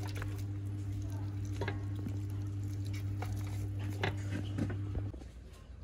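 A steady low electrical hum under a few light clicks and scrapes of a knife against a metal cooking pot. The hum cuts off suddenly about five seconds in.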